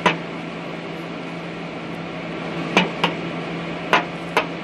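Welding machine humming steadily in a small shop, with a few sharp clicks or taps about three and four seconds in.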